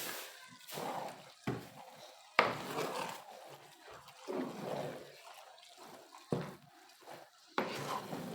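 Cooking pot and utensil handling: a few sharp knocks or clatters, with quieter scraping and stirring noises between them.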